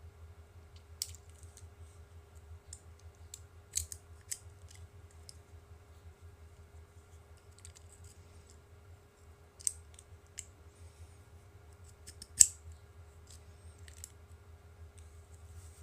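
Scattered sharp clicks and light scratches from a box cutter being handled and cut into a thin cardboard rocket body tube, the loudest click about twelve seconds in. A steady low hum runs underneath.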